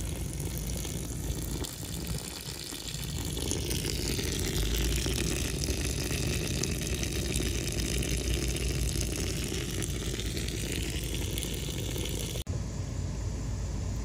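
Water from a garden hose running and splashing into a pond: a steady rushing noise.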